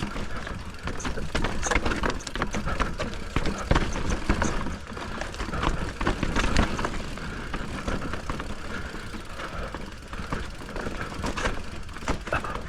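Continuous clatter and knocking from riding over a rough, rocky trail, over a steady low rumble of wind on the microphone.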